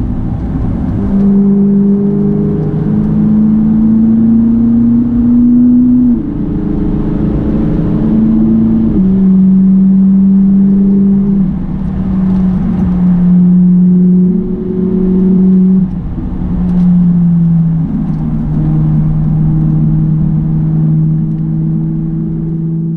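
Ferrari 458 Italia's 4.5-litre V8 driving along at moderate revs, heard from inside the cabin. The engine note holds steady for a few seconds at a time, climbs gradually in places, and steps up or down abruptly several times as the revs change.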